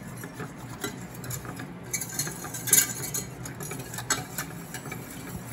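A utensil stirring a simmering liquid dressing in a small stainless steel saucepan, with light scraping and ticking against the pan. A louder clink comes a little under three seconds in.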